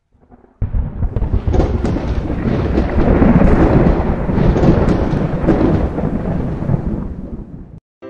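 Thunder rumble sound effect, a deep crackling roll that starts suddenly about half a second in, swells, then fades away and stops just before the end.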